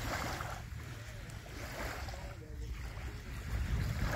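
Wind buffeting the microphone with a steady low rumble, over small waves washing onto the sand about every two seconds.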